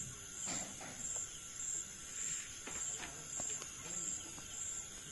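Night-time insect chorus: a steady high chirring that pulses a little under twice a second, with a few faint clicks and rustles over it.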